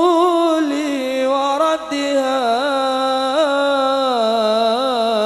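A solo male voice sings a long, ornamented sholawat melisma, its pitch bending and wavering, with a short break for breath just under two seconds in.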